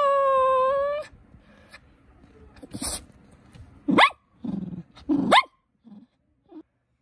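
A poodle whining and grumbling for attention: one long moaning whine for about the first second, then, after a brief noisy burst, two short rising yips with a low growly grumble between them.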